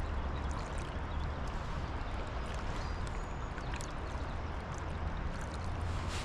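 Steady rush of river water, with a constant low rumble underneath and a few faint clicks.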